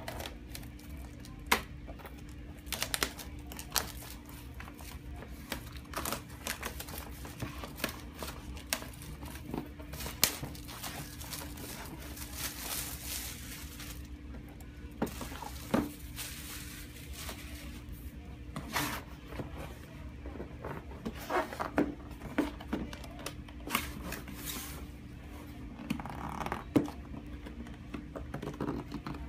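Plastic shrink wrap being cut and peeled off a cardboard router box: crinkling and tearing, with scattered clicks and knocks as the box is handled.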